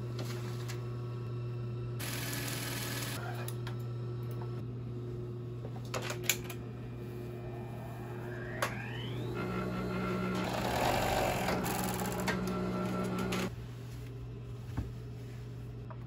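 A steady low motor hum with a few clicks and a brief noisy burst early on. About eight seconds in, a Juki overlock serger spins up with a rising whine. It runs fast, stitching for about four seconds, then stops abruptly.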